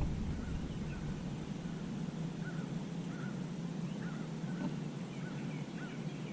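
A bird calling over and over in short chirps that rise and fall, about one or two a second, over a steady low hum.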